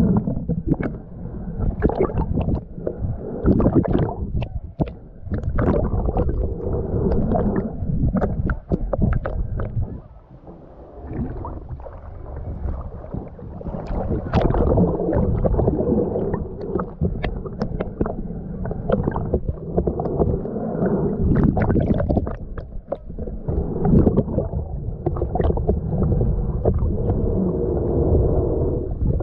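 Muffled water sloshing and gurgling, typical of an action camera in a waterproof housing in or under the sea, with many short clicks and knocks scattered throughout.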